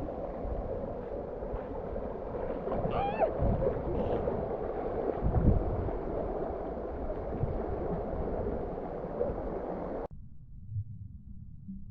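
Creek water rushing steadily, with a short high voice-like cry about 3 seconds in. It cuts off suddenly about 10 seconds in, leaving only a faint low hum.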